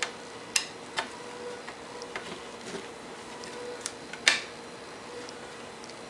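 Scattered small clicks and taps of small screws and a screwdriver on an Akai MPK Mini keyboard's plastic case and circuit board as the screws are taken out, the sharpest click a little past four seconds in.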